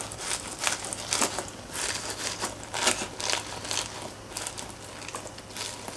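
A frozen squeeze ball with gel beads inside, frosted and icy, crackling and crunching as it is squeezed and kneaded by hand.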